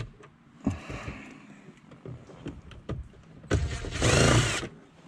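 Cordless drill-driver with a T20 Torx bit on an extension backing out one of the screws that hold an instrument cluster. The motor runs for about a second near the end, its pitch rising and then falling, after a few small clicks as the bit is set on the screw.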